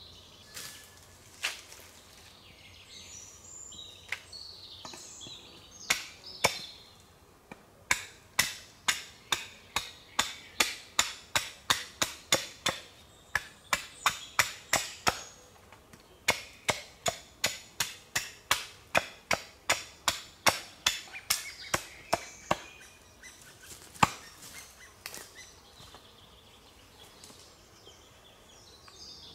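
Wood being chopped with a hand tool: a few single strikes, then two long fast runs of sharp blows, about two to three a second, with a short break between them, then a few more single strikes.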